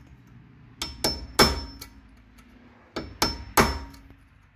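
Hammer striking a steel punch set at an angle in a drilled notch on a stripped brake-rotor retaining screw, to shock it loose. There are two sets of three blows, each two light taps then a harder hit, and each strike has a short metallic ring.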